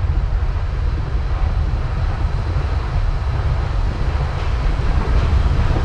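Train rumbling, a steady deep rumble with a hiss above it that cuts in suddenly and grows slightly louder toward the end.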